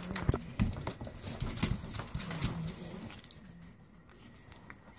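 Pug puppies making short low grunts as they move about in a plastic kiddie pool, with scattered clicks and scratches of paws and claws on the plastic.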